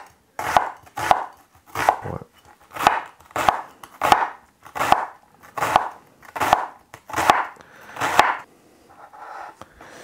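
Chef's knife chopping an onion on a wooden chopping board: steady, even strokes about one and a half a second, each ending in a knock on the board. The chopping stops about eight and a half seconds in.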